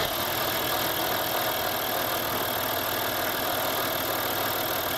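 Audi 2.5 TDI AKE V6 turbodiesel engine idling steadily.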